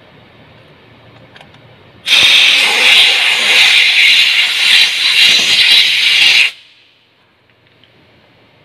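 Compressed air hissing from a hand-held air gun as carburetor parts are blown clean. There is one continuous blast of about four seconds, starting about two seconds in and cutting off abruptly.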